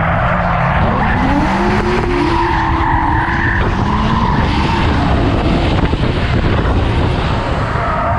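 Nissan Skyline R32 drift car's engine revving, its pitch rising and falling repeatedly with the throttle, over the hiss and squeal of tyres sliding in a drift.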